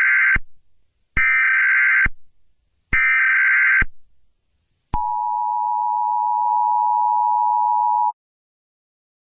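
Emergency Alert System tones: three short, loud bursts of SAME digital header data, each under a second, then the steady two-tone EAS attention signal held for about three seconds before it cuts off.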